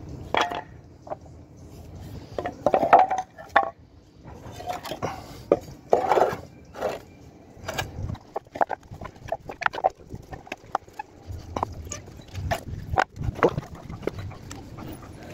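Irregular knocks, taps and clatters of hands-on handling work, as something is set in place and fastened firm, with a few brief scraping sounds.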